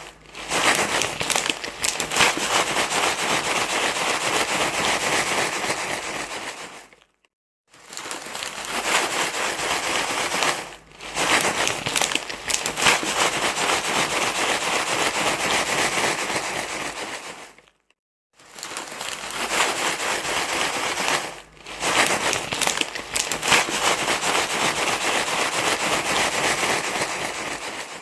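Dense crinkling rustle of something being crumpled and handled, going on in long stretches with brief breaks about seven and eighteen seconds in.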